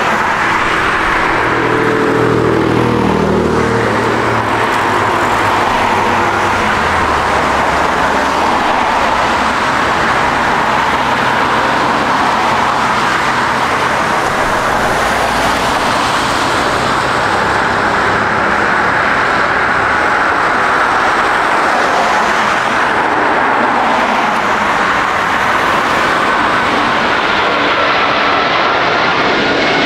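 Jet airliner's engines, a loud steady roar as the aircraft passes close by on landing or takeoff, with a whining tone coming in near the end.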